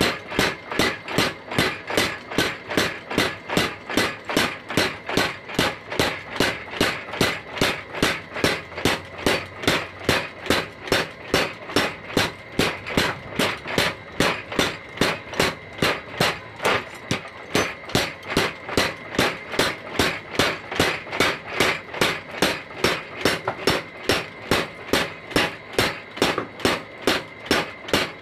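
Homemade 25 kg mechanical power hammer pounding a red-hot steel blade on its anvil in a steady rhythm of about three blows a second.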